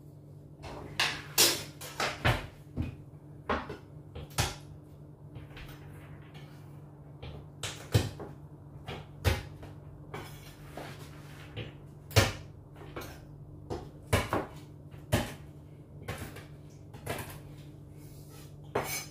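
Kitchen knife chopping walnuts on a wooden chopping board: irregular sharp knocks of the blade striking the board, about one or two a second, with a pause of a couple of seconds a few seconds in.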